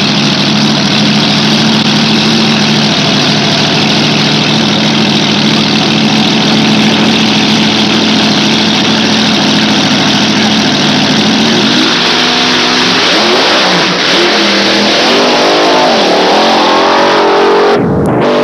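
Dragster engine running loudly at a steady idle, then revved repeatedly with the pitch rising and falling through the last third. The sound cuts out briefly near the end.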